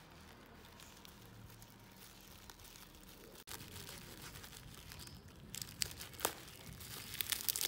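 Plastic parcel wrapping crinkling and tearing as it is cut open with a small knife: faint at first, with sharp crackles growing louder over the last two seconds.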